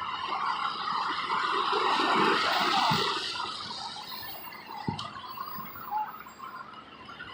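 A vehicle's tyres hissing through water on a rain-wet road as it passes, swelling to its loudest about two seconds in and then fading. A sharp click near the five-second mark.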